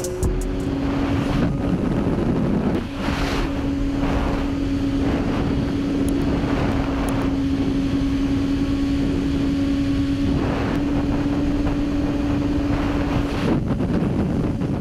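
Motorcycle engine running at a steady high speed, its note holding one pitch, under heavy wind rush on the microphone. The engine note fades out near the end.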